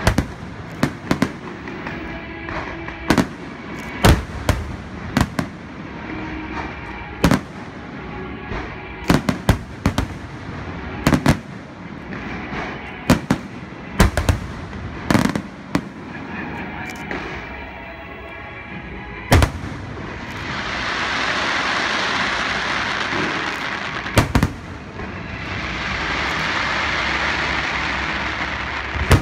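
Aerial fireworks display: shells bursting with sharp bangs at irregular intervals, sometimes several within a second. Near the end the bangs thin out and give way to two long stretches of dense crackling hiss lasting several seconds each, as glittering crackle stars burn out.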